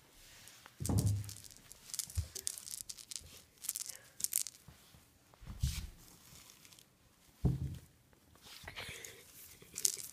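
Close-up rustling and crackling of a hand handling and petting a kitten, fur and fingers rubbing near the microphone, with three dull thumps.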